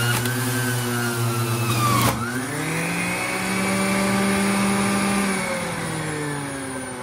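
Hamilton Beach centrifugal juicer's motor running, a little bit loud, as peeled orange pieces are pushed down the chute into the spinning cutter. About two seconds in there is a knock and the motor's pitch drops under the load, then it climbs back and sags slowly again near the end.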